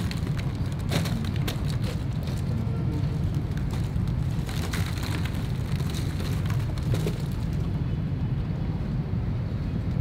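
Steady low outdoor rumble with many scattered crackling clicks over it, which thin out about three-quarters of the way through.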